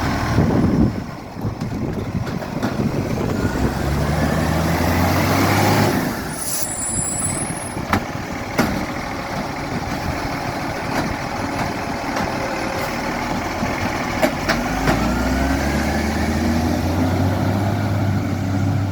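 Garbage truck engine running, its pitch rising twice as it revs, with a few sharp clicks; the truck has an exhaust leak.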